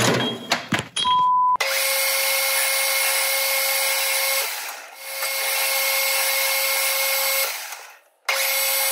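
A few sharp metallic clicks, then a metal lathe running with a steady whine while facing the end of a steel tube. The whine cuts out briefly, fades near the end, and comes back abruptly.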